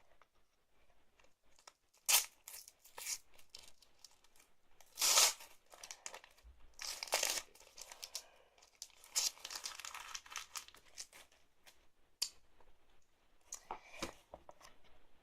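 Foil booster pack of football trading cards being torn open and crinkled by hand, in several separate bouts of tearing and rustling.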